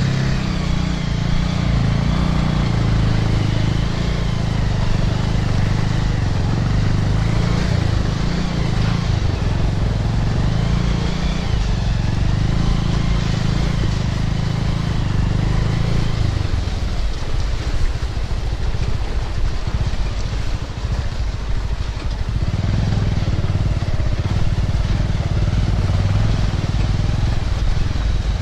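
Motorcycle engine running at low speed over a rough dirt track, with road and tyre noise. The engine note eases off for a few seconds past the middle, then picks up again.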